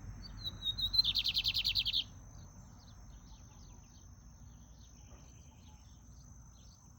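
Sporophila seedeater singing one short phrase: a few clear notes that run into a fast, even trill of about a dozen notes, lasting under two seconds. A faint steady high tone continues underneath.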